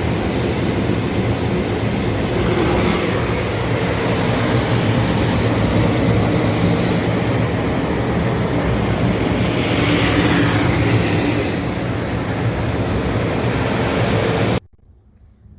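Steady, loud vehicle rumble with a hiss, swelling slightly twice and then cut off abruptly near the end.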